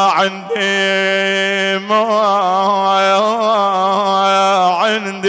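A man's voice chanting a Shia mourning lament (nuʿi), stretching one syllable into long held notes with a wavering ornament and a slide in pitch near the end.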